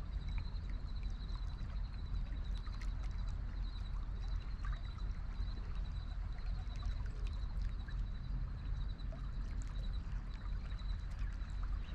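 River water running steadily, with a low rumble of wind on the microphone.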